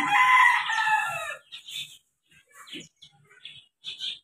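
A rooster crowing once: one loud call of about a second and a half that drops in pitch at its end.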